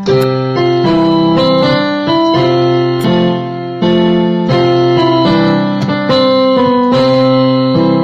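Background piano music: a melody of notes changing about every half second over held low notes.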